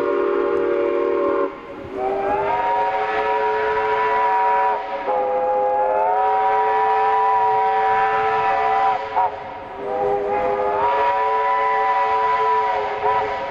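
Steam locomotive's chime whistle blowing, several tones at once. A lower chord cuts off about a second and a half in. Then come long blasts, a short toot and a final long blast, each sliding up in pitch as it opens, in the long-long-short-long pattern of a grade-crossing signal.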